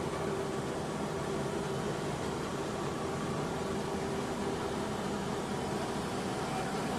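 Steady drone of an LCAC hovercraft's gas-turbine engines, propellers and lift fans under way, heard inside the crew cabin, a constant noise with a faint steady hum in it.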